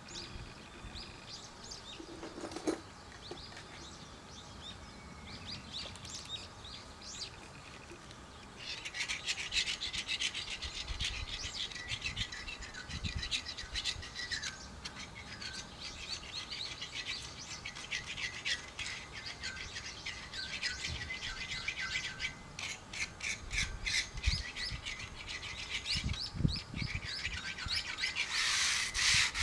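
Rust being rubbed off a swing set's steel pipe frame by hand with an abrasive: quick, uneven back-and-forth scratching strokes that start about a third of the way in and grow loudest near the end. Before the rubbing begins, birds chirp.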